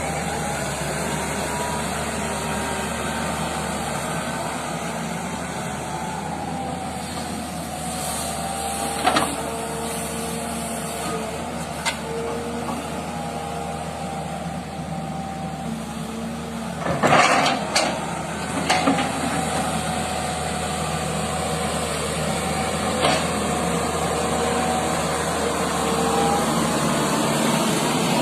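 Excavator engine running steadily, with a hydraulic whine that slowly rises and falls as the machine works. Several sharp metallic knocks cut through, the loudest cluster about two-thirds of the way in.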